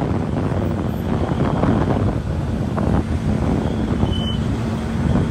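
Wind buffeting the microphone and steady road and engine noise from a moving vehicle.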